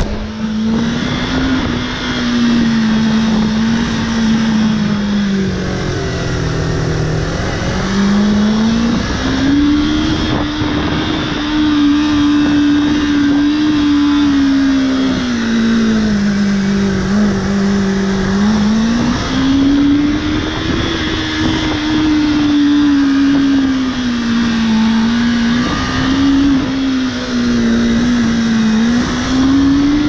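Motorcycle engine running under load, its pitch climbing and dropping again several times as the throttle is opened and closed, over a steady rushing noise.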